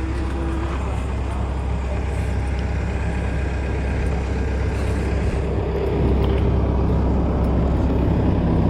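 An engine running steadily with a low hum, a little louder from about six seconds in.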